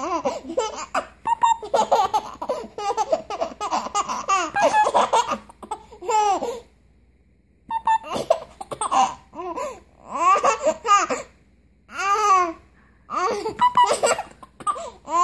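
Baby laughing in repeated high-pitched fits while hiccuping, the laughter breaking off and starting again, with a quiet gap of about a second midway.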